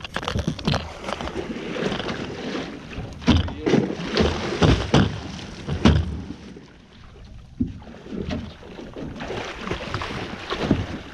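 Hooked alligator thrashing at the surface beside an aluminum jon boat, churning the water in heavy bursts of splashing with sharp knocks mixed in. It eases off briefly about two-thirds of the way through, then picks up again.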